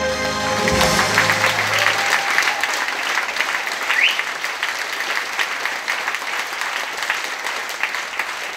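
Audience applauding as the song's last chord dies away over the first two seconds. The clapping fades a little toward the end.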